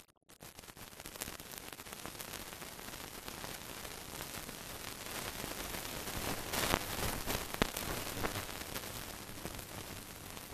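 Steady hiss with scattered crackles and clicks, growing a little louder near the middle: the noise of an old film transfer with no recorded sound.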